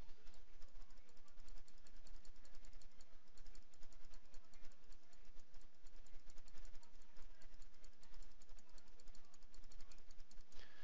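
Computer mouse button clicked rapidly and steadily, several clicks a second, placing stitch points one by one while hand-digitizing an embroidery design.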